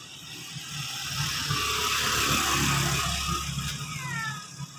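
A motor vehicle passing on the road, its engine and tyre noise growing louder from about a second in, then fading away.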